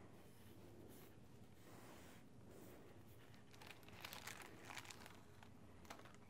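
Near silence with faint crinkling of wax paper, a few soft rustles about four to five seconds in and one more near the end, as a freshly painted picture frame lined with it is handled.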